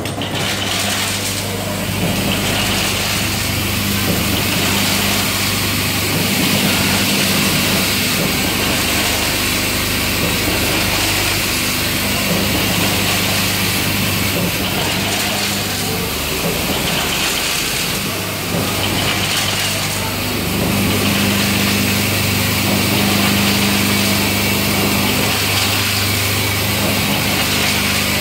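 Vibratory bowl feeders of a hardware packing machine running: a steady low electric hum with a dense metallic rattle of screws and small metal parts travelling around the bowls. The hum drops briefly about two-thirds through, then resumes.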